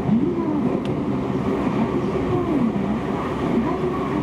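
Electric commuter train running, heard from on board: a steady rumble of wheels and running gear, with wavering tones that glide up and down.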